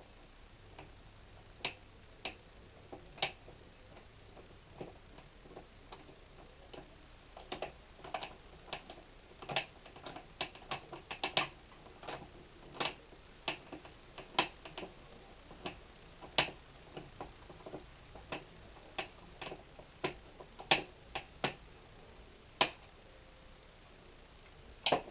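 Irregular light clicks of a hand screwdriver turning a screw that fixes a dimmer switch to its back box, the clicks coming in clusters with short pauses between.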